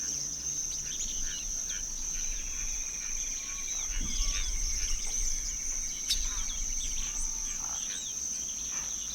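Many birds chirping in short calls over a steady high-pitched insect drone.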